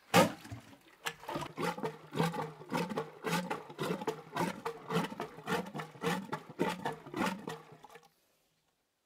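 Ladakhi butter-tea churn being worked: a wooden plunger pumped up and down in a metal cylinder, the liquid inside sloshing and gurgling with every stroke, about two to three strokes a second. It stops about eight seconds in.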